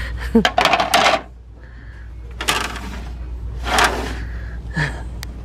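Hard plastic serving platters clacking and scraping against each other and the metal store shelf as they are handled: a cluster of clacks in the first second, then two short rattles, over a steady low hum.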